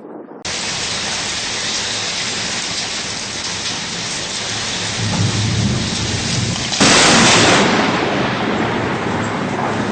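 Thunderstorm: heavy rain with rolling thunder, starting abruptly, the low rumble building around five seconds in. A sudden loud thunderclap lasting under a second hits about seven seconds in.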